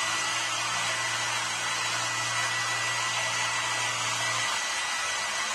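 Hair dryer running steadily: a loud rushing blast of air with a steady high whine, and a low hum underneath that drops away about four and a half seconds in.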